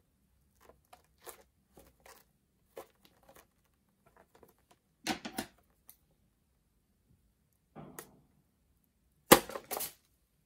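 Slime-filled rubber balloons squeezed and handled, giving a string of short rubbery squeaks and crackles. Near the end a balloon is cut open with scissors: the loudest moment, a sharp snap of splitting rubber and the thick white filling splatting out.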